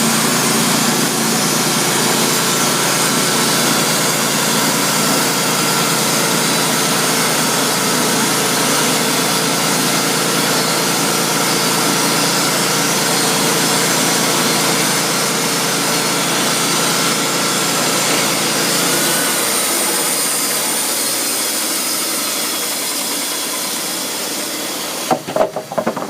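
Wood-Mizer LT35 portable band sawmill running, its engine and band blade going steadily through a log. About 19 seconds in the engine note shifts and the sound eases off, and a few sharp knocks follow near the end.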